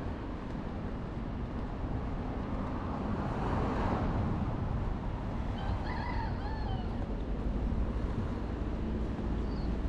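Road traffic noise, a steady low rumble with one vehicle passing about three to five seconds in. A few short chirping tones come a little later.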